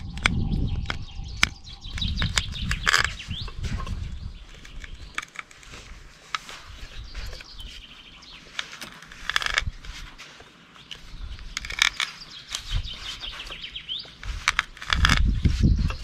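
Wild birds singing in repeated warbling phrases, over many scattered sharp clicks and cracks, with low rumbling noise at the start and again near the end.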